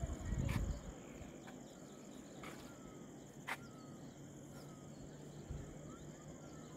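A steady high-pitched insect chorus, with a few short rising bird chirps and sharp ticks over it. A low rumble in the first second is the loudest part.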